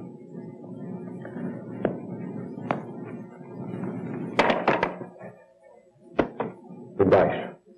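Wooden chair knocking on a stage floor: a couple of light clicks, then a loud cluster of thunks about four and a half seconds in and a few more near the end, over a steady low background hum.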